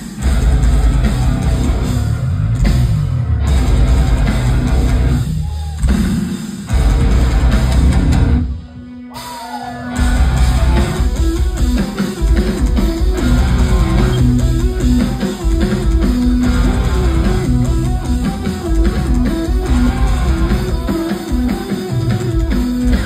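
A metalcore band playing live, heavy distorted electric guitars and drum kit, heard from within the crowd. The first half stops and starts in short breaks, with a near pause about nine seconds in, then a repeating riff runs on steadily.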